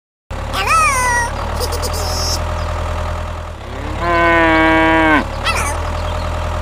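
Tractor engine running steadily at idle, with cattle calls over it: a short rising call about a second in and a long cow moo about four seconds in, the loudest sound.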